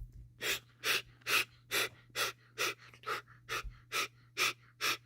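A person breathing hard and fast in a steady rhythm, about two forceful breaths a second, each a short hissing puff.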